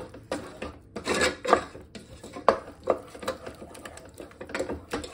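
A black cooking spoon stirring and scraping thick apple chutney around a stainless-steel pot, in short, irregular strokes against the pot's bottom and sides.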